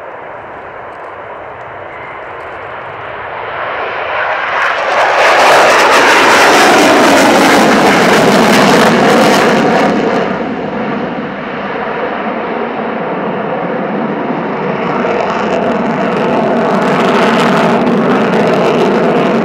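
Sukhoi Su-27P jet fighter's twin turbofan engines passing close: the jet noise swells to a loud roar with a falling pitch as it goes by. It then eases to a steady rumble and swells again near the end.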